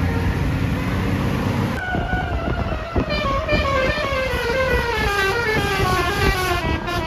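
Tour bus basuri musical horn playing a telolet tune, a fast run of short notes of several tones at once, about four a second, stepping steadily down in pitch. It starts about two seconds in, after a steady low rumble.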